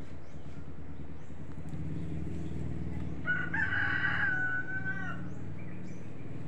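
A rooster crowing once, a single call of about two seconds that drops slightly at the end, over a steady low hum.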